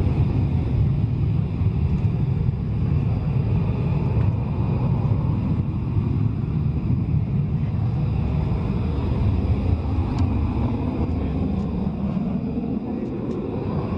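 Panavia Tornado's twin RB199 turbofan engines running at taxi power: a steady low rumble with a thin, even whine above it.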